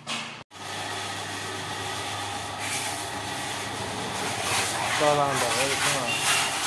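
Water from a hose spraying onto a motorcycle: a steady hiss that swells in surges from about the middle on, over a steady low hum. A voice is heard briefly about five seconds in.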